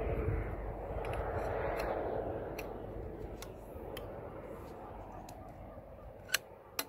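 Tent pole sections clicking together as a sectioned pole is assembled by hand: a string of light clicks, the two loudest near the end. A low rumble fades away in the first few seconds.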